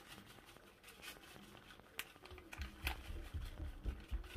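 Faint handling of a plastic packet of grated cheese being shaken over a pan: light crinkling, a couple of sharp ticks about two and three seconds in, and soft low thumps in the second half.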